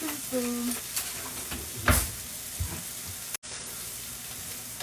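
Food sizzling steadily in a hot frying pan, with a single knock about two seconds in, like a spoon striking the pan.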